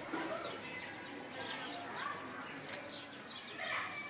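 Small birds chirping repeatedly in short, high, arched notes, with a louder call near the end.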